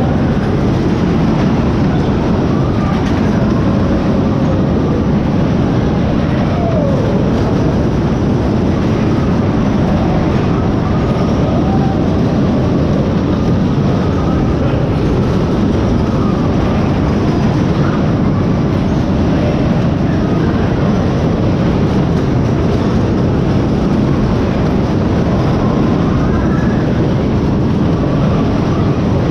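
Steady, loud rumbling of a moving rail vehicle, as heard riding on it.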